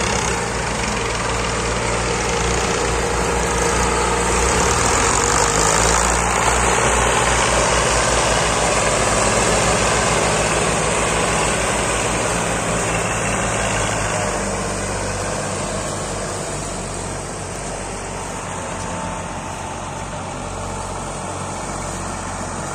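Diesel engines of Massey Ferguson tractors running hard under load as they haul a heavily laden sugarcane trolley, with a low, pulsing beat. The sound swells toward the middle and eases off after about fourteen seconds.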